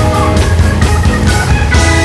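Blues music with electric guitar and a steady beat.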